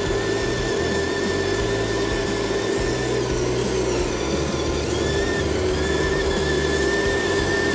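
Electric motor and gearbox of a radio-controlled cab-over truck whining steadily as it crawls through mud.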